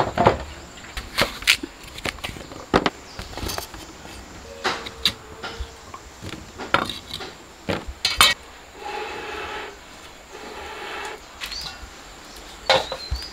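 Kitchen knife cutting taro on a thick wooden chopping block: irregular knocks of the blade striking the wood. Near the end a metal clank as a cooking pot's lid is lifted.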